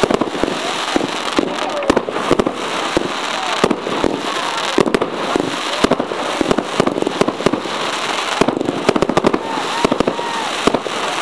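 Fireworks going off in rapid succession: many sharp bangs and crackles over a continuous hiss from several gold-tailed shots rising and bursting at once.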